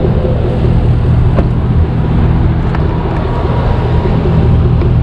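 Ford F-550 tow truck's 6.7-litre Power Stroke V8 diesel running steadily at cruise with road noise, heard from inside the cab. The engine sounds quiet and healthy after a cam, lifter, pushrod and turbo rebuild.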